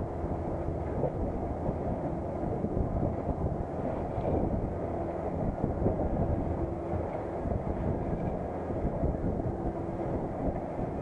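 Steady low drone of a fishing boat's engine, mixed with rushing wind and water noise.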